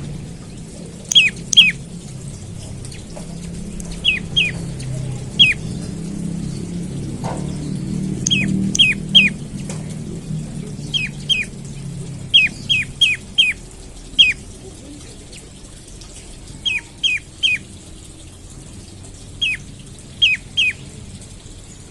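Prenjak lumut calling: loud, sharp notes that drop quickly in pitch, given singly or in quick runs of two to four, repeated every second or two.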